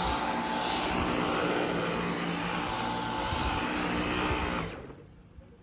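Dyson V10 Animal cordless stick vacuum running on its lowest suction setting (setting 1): a steady motor whine with a high whistle. It is switched off near the end and the whine falls away.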